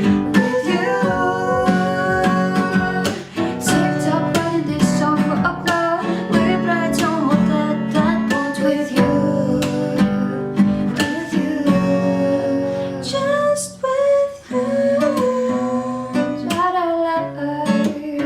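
Music: a pop song led by strummed acoustic guitar, with a gliding melody line and a steady beat, in a stretch between sung lines.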